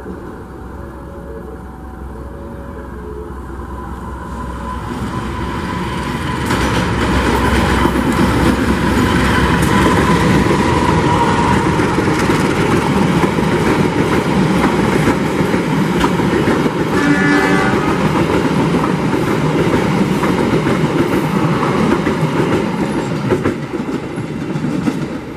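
Diesel-hauled passenger train passing straight through a station without stopping. It grows louder over the first several seconds as the locomotive arrives, then the carriages rumble and clatter past steadily. There is a short horn blast about 17 seconds in.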